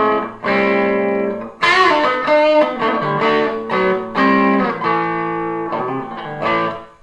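Electric guitar played through an amplifier: a series of strummed chords, each ringing out briefly before the next. The signal passes through a Pyle passive ground loop isolator.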